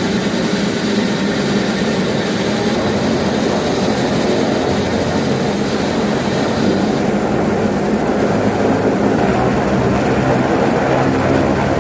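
Helicopter running, its turbine and rotor making a loud, steady drone; the high hiss falls away about seven seconds in, leaving the lower rotor hum.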